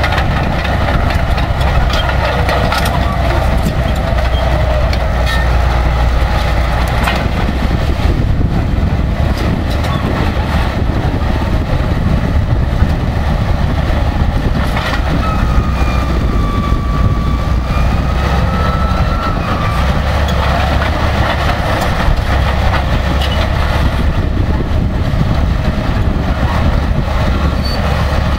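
Crawler bulldozer's diesel engine running loudly and steadily with the clanking of its steel tracks as it works through soil and stumps. A thin high wavering tone sounds briefly about halfway through.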